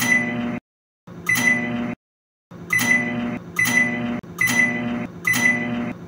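Electrolux MA30S microwave oven in short chopped bits, about seven in a row. Each starts with a short high electronic beep, followed by the steady hum of the oven running, and is cut off abruptly. The repaired control board is powering the oven again.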